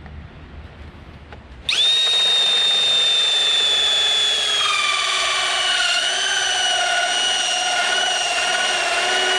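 Power drill driving a 2.5-inch hole saw, cutting an escape-ring hole in a stone crab trap. It starts up a little under two seconds in and runs with a steady high whine, whose pitch steps down a little about halfway through.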